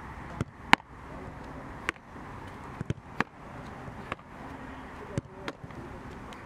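Footballs being kicked, about ten sharp thuds at irregular intervals over a steady background hum; the loudest comes less than a second in.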